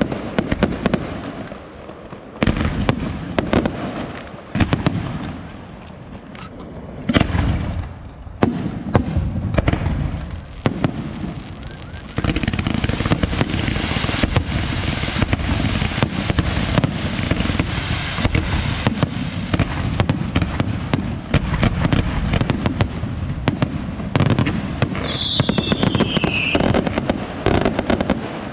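Aerial fireworks shells bursting: separate bangs and crackle at first, then about twelve seconds in a dense, continuous barrage of bursts and crackling. A short falling whistle cuts through near the end.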